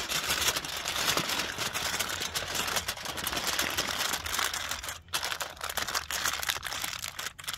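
Aluminum foil crinkling and crackling as it is folded over and rolled shut to seal a foil-packet meal. The crinkling is continuous apart from brief pauses about five seconds in and near the end.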